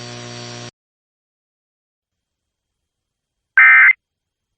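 The faint steady hum of the weather-radio broadcast cuts off less than a second in. After about three seconds of silence comes one short, loud burst of EAS digital data tones, an end-of-message burst that marks the end of the alert.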